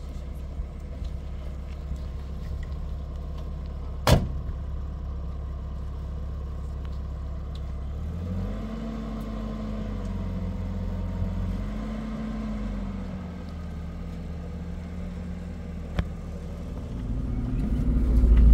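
Car engine running as the vehicle drives, a steady low sound whose pitch rises and falls twice about halfway through. A single sharp knock comes about four seconds in, and the engine grows louder near the end.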